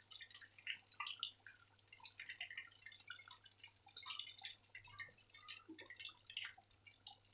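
Sumedang tofu deep-frying in hot oil in a wok: faint, irregular crackling and popping of the bubbling oil, over a low steady hum. The tofu is still soft, early in the frying, before it is turned.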